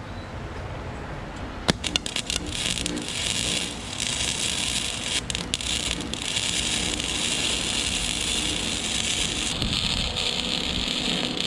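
Gasless flux-core wire welder arc welding a steel pipe joint: a few sharp pops as the arc strikes about two seconds in, then a steady crackling sizzle that stops at the very end. The joint is being gone over again to strengthen the weld.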